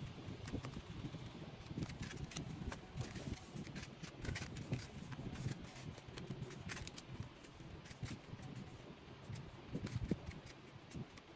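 Sleeved photocards being flipped through and dealt onto piles: many small plastic clicks and rustles from the card sleeves, coming irregularly throughout.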